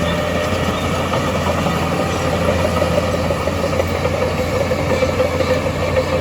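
Heavy diesel engine of earthmoving machinery running steadily, with a steady whine that grows a little stronger a couple of seconds in.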